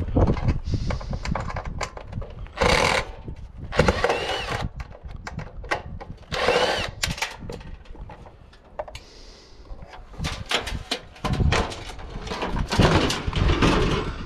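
Cordless drill-driver run in short bursts, with a small rising whine as it spins up, backing screws out of a water cooler's casing. Knocks and clatter of loose parts fill the last few seconds.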